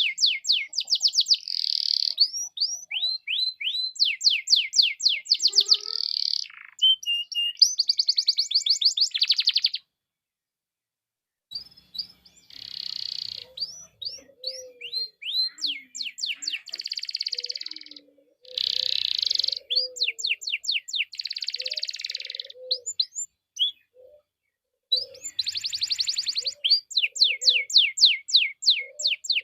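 Domestic canary singing: fast trills and rolls of rapidly repeated high notes in phrases, with a pause of about two seconds about a third of the way in before the song resumes.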